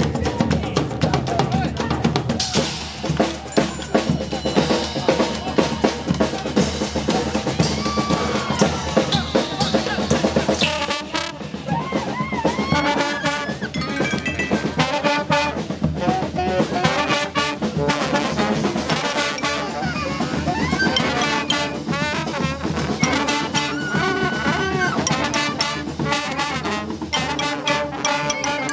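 Street band of brass and drums playing live: trumpets and trombones over a drum kit beat. The playing thins briefly about eleven seconds in, then the brass melody comes to the fore.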